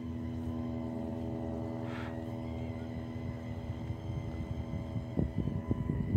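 Small radio-controlled toy boat's motor running with a steady whine over a low rumble. From about five seconds in, irregular low knocks and crackles of water or wind hitting the boat join it.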